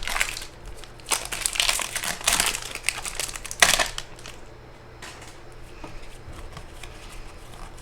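The wrapper of a 2024 Score football card pack crinkling and tearing as it is opened by hand: a run of rustles for about four seconds, the loudest near the end of that run, then only faint handling.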